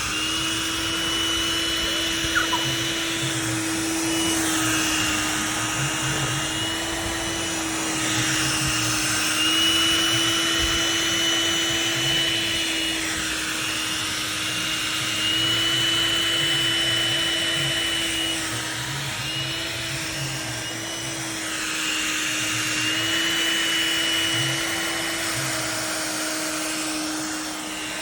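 Vacuum cleaner running continuously, its motor whine dipping in pitch and recovering every few seconds as the nozzle is pressed against and lifted from a bulldog's coat to pull out loose hair.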